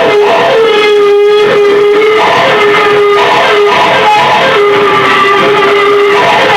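Loud, steady music played on electric guitar, with a long held note running under changing higher notes.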